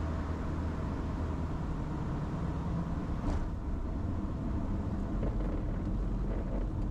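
Cabin noise of a Cirrus SR22T with its turbocharged six-cylinder engine throttled back to idle during the landing flare and rollout: a steady low drone, with a brief hiss about three seconds in.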